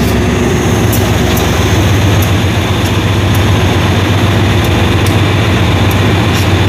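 GE diesel-electric locomotive's engine running close by with a steady low rumble, with light clicks about once a second.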